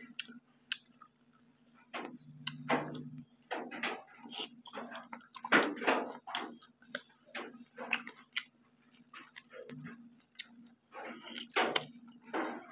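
Two people eating boiled beef with their hands: irregular close-up chewing, lip-smacking and mouth clicks. A faint steady hum runs underneath.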